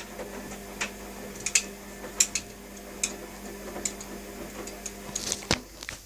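Washing machine running: a steady hum with a sharp click roughly every three-quarters of a second. Near the end a loud click comes as the hum cuts off.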